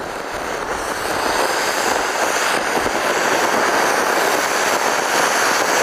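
Anar (flower-pot fountain firework) spraying sparks with a steady hiss that builds over the first second or two, then holds.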